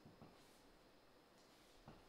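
Near silence: room tone, with two faint soft knocks, one just after the start and one near the end.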